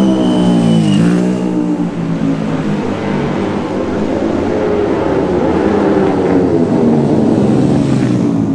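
Racing motorcycle engines at high revs speeding past. In the first second one engine's pitch drops as the bike goes by. Then another bike's engine note holds high and swells as it approaches, passing near the end.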